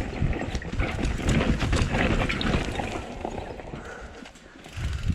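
Mountain bike rolling over a rough, rocky, dusty trail: tyres crunching over loose rock and the bike rattling with many small knocks. It goes quieter for about a second near the end, then the rattle picks up again.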